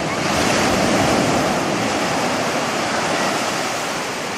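Ocean surf washing in, swelling about half a second in and slowly easing, with wind on the microphone.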